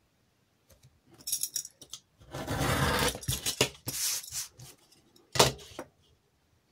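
Stitching wheel rolled over cardstock to mark faux stitches along a card's edge: several scraping passes, the longest about a second, with a sharp knock near the end.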